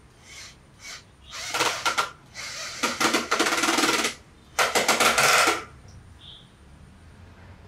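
Cordless drill-driver with a socket bit running in short bursts on bolts on a small sprayer engine: two brief blips, then three longer runs of about a second each.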